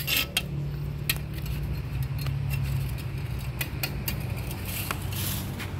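Metal trash tongs clicking and scraping against the concrete and debris of a drain channel, with about half a dozen sharp clicks spread through, over a steady low motor hum.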